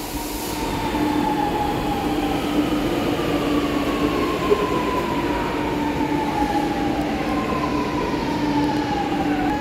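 Electric metro train pulling into the station alongside the platform: a steady rumble with a high whine that falls slowly in pitch as the train slows.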